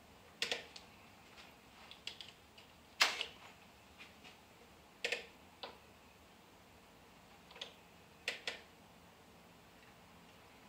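Irregular sharp clicks and clacks from a slow-moving HO scale model train. There are about eight of them, a second or more apart, some in quick pairs.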